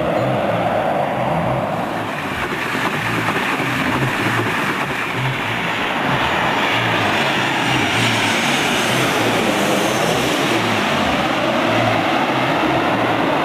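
Twin-engine jet airliner on final approach passing low overhead: steady jet engine noise, with a sweeping, shifting tone about two-thirds of the way through as it goes over.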